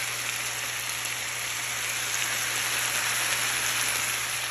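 Chicken fajita strips with bell peppers and onions sizzling in an oiled frying pan: a steady hiss.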